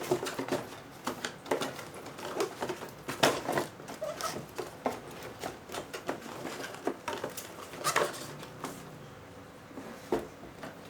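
Hands handling computer parts and their boxes and packaging: irregular light knocks, clicks and rustles, with louder knocks about three seconds in and again near eight seconds.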